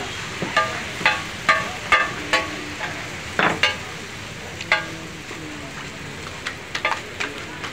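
Metal spatula clinking and scraping on a large flat metal griddle while chopped chicken fries and sizzles on it. The ringing clinks come about twice a second for the first few seconds, then more sparsely.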